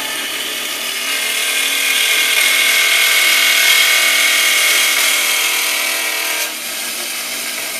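Ellis 1600 metal-cutting bandsaw starting up and running its 1-inch blade through a rectangular steel tube. It is loudest mid-cut, then drops to a lower, steady running sound about six and a half seconds in as the blade finishes the cut.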